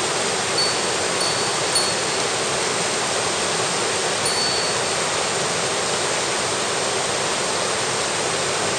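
Mountain stream rushing steadily over boulders and small cascades, an even, unbroken rush of water. A few brief high thin notes sound over it in the first two seconds and once more a little after four seconds in.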